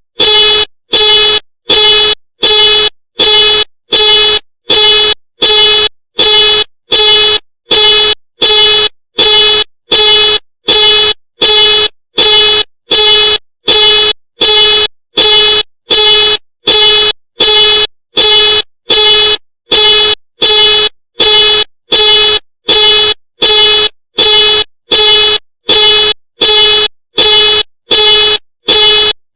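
Ford car alarm going off: the car's horn honks in short, identical pulses at an even rhythm, about three honks every two seconds, on and on without change.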